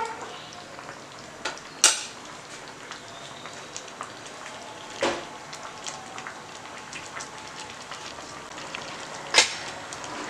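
Chicken in coconut-milk gravy simmering in a pan as it comes to the boil, a steady faint bubbling with many small pops. Three sharp clicks stand out, at about two, five and nine seconds in.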